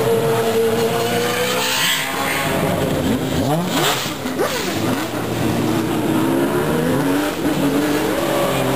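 Open-cockpit sports-prototype race car's engine at high revs, approaching, passing close about four seconds in, then pulling away. Its pitch rises and falls with the revs.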